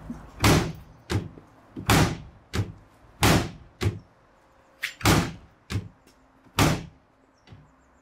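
The porthole door of a Bosch front-loading washing machine is slammed shut and swung open again and again by hand: about ten loud, sharp bangs at irregular intervals of half a second to a second.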